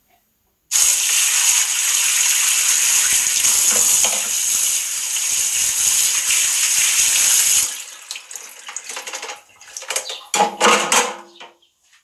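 Kitchen tap running full onto a dishwasher's flat mesh filter plate in a stainless steel sink, the water spattering off the metal. It turns on abruptly about a second in and shuts off about seven seconds later, followed by a few short, irregular splashes and knocks as the wet filter parts are handled.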